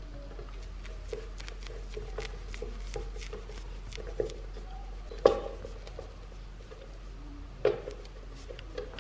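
Light clicks and taps of small parts and tools being handled on a workbench, with two louder knocks about five and seven and a half seconds in, over a steady low hum.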